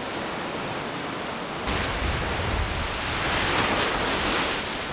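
Lake Superior waves washing onto the sandy beach below the cliffs, mixed with wind, heard as a steady rush. It grows fuller and louder about a second and a half in.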